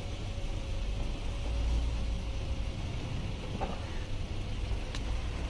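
Steady hiss of light rain on a wet street over a low rumble, with two faint clicks in the second half.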